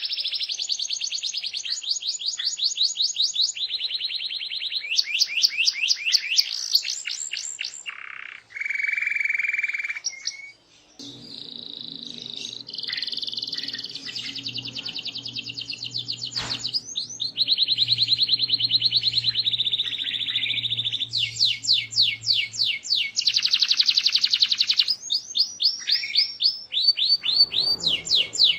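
Domestic canary singing continuously in fast, rapid trills and rolls, switching to a new phrase every second or two. A faint low hum runs beneath the song through the middle.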